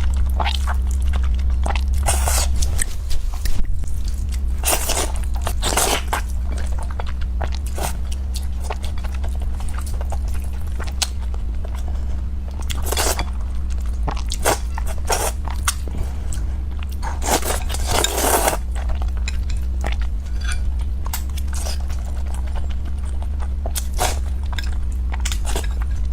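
A person eating close to the microphone: irregular chewing and crunching mouth noises. A steady low hum runs underneath.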